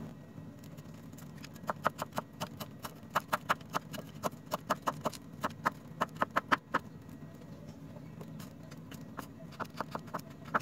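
Kitchen knife chopping carrots on a foil-covered wooden chopping board: a quick, even run of knocks, several a second, that stops for a couple of seconds and starts again near the end.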